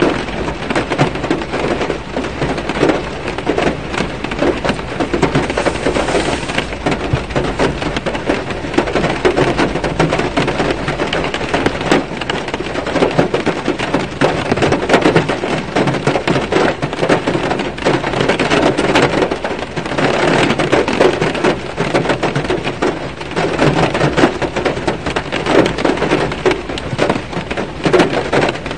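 Rain falling on a car's roof and windshield, heard from inside the car: a dense crackle of countless drops that swells and eases every few seconds.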